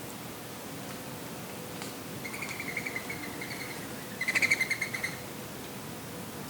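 A songbird gives two rapid chattering calls, each a quick run of pulses; the first comes about two seconds in and the second, louder one about four seconds in. Behind them is a steady soft hiss of breeze.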